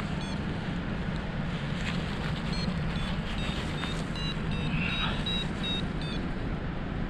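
Steady rush of airflow over the microphone in paraglider flight, with faint short high electronic beeps from a flight variometer coming in groups, most about two-thirds of the way through.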